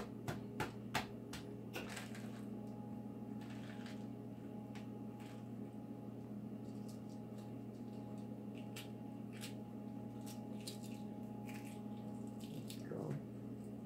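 Hard-boiled eggshell cracking and being peeled by hand: a few sharp taps in the first second, then scattered faint crackles and clicks as bits of shell come away. A steady low hum runs underneath.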